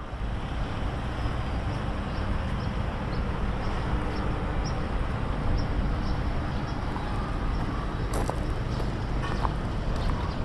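Steady outdoor background rumble, heaviest in the low end, with faint high chirps repeating about twice a second. Footsteps start about eight seconds in.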